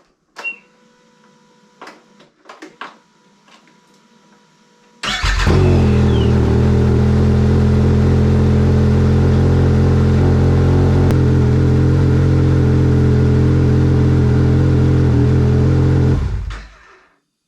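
Arctic Cat XF7000 snowmobile's four-stroke triple engine starting about five seconds in, after a few faint clicks, and idling steadily for about eleven seconds before it is shut off. It is being run to circulate freshly added engine oil and check the level in the sight glass.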